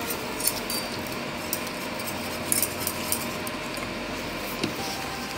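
Scattered light clinks and taps of a glass bowl and utensils being handled on a table, over a steady background hum.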